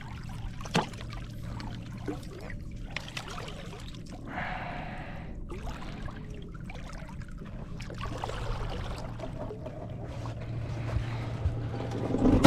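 Water trickling and splashing, over a low steady hum, with a few light knocks.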